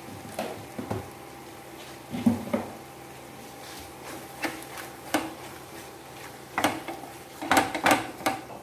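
A spoon stirring a thick mushroom roast in a pan, with irregular scrapes and knocks of the spoon against the pan. A cluster of knocks comes near the end.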